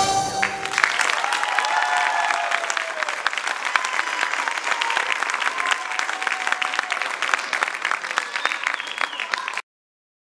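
The dance music ends under a second in, and an audience applauds steadily until the sound cuts off abruptly near the end.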